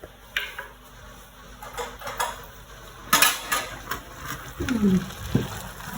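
Kitchen utensils clinking and knocking against pots and dishes during cooking: a few separate light clatters, with the loudest cluster about three seconds in.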